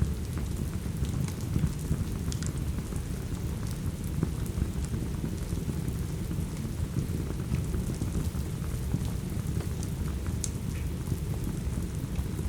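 Steady rain over a dense low rumble, with scattered sharp crackles and pops from a wood fire.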